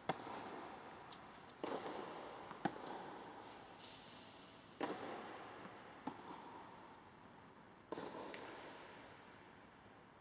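Tennis balls struck by rackets and bouncing on an indoor hard court, each hit or bounce a sharp pop followed by a long echoing tail in the large dome. A hit comes every one to three seconds, and the last is a little before the end.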